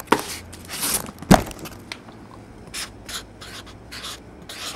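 Marker pen scratching across a cardboard case in a string of short strokes while a word is written, with one sharp knock about a second in.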